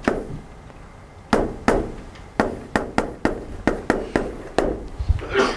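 Chalk striking a blackboard as someone writes on it: about a dozen sharp, irregular taps, a few tenths of a second apart, starting about a second in.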